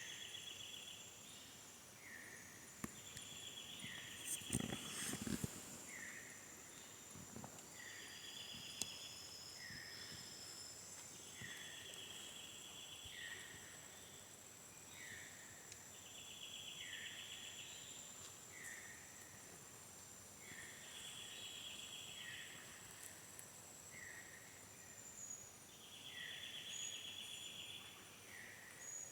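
Faint Amazon rainforest ambience: insects keep up a steady high buzz, a pulsed trilling call repeats every two to three seconds, and short calls come about once a second between them. A few brief knocks about four to five seconds in.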